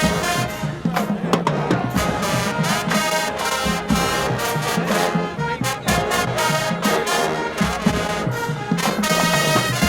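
HBCU marching band playing: a full brass section of trumpets, trombones and tubas over drumline percussion.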